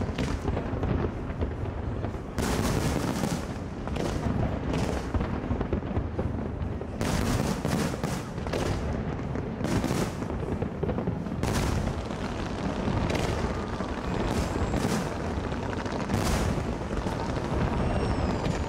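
Large aerial fireworks display: continuous deep booming of bursting shells with many sharp bangs and crackles. A brief high gliding whistle comes near the end.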